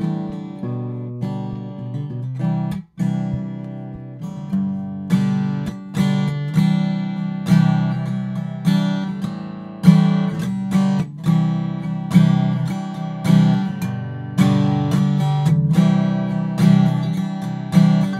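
Acoustic guitar strumming chords, each strum ringing out before the next. The guitar is a test recording played back through one of the studio condenser microphones under comparison.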